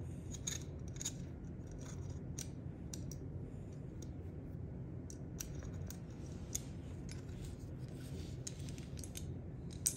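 Small irregular metallic clicks and scrapes of a ball-end hex key turning small screws out of a paintball marker's metal frame, faint over a low room hum.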